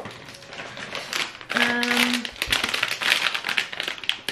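Plastic sweet wrapper crinkling and rustling as it is handled, dense crackles from about a second and a half in, with a short steady hum at the same moment.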